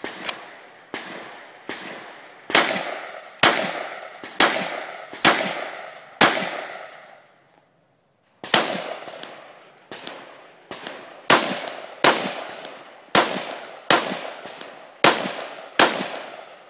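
AR-15 rifle fired in a string of about twenty shots at an uneven pace, roughly one every second or less, each shot ringing out with a decaying echo. A pause of about a second comes a little under halfway through before the firing resumes.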